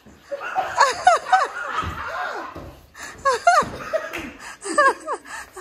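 Several people laughing in repeated bursts, with short cackles that fall in pitch.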